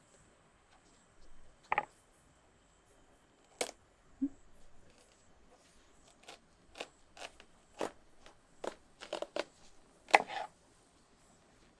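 Knife cutting into a watermelon: a series of short crunches and cracks through the rind, the loudest about ten seconds in.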